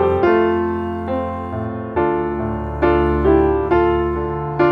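Background piano music: a slow tune of struck notes and chords, each fading away before the next.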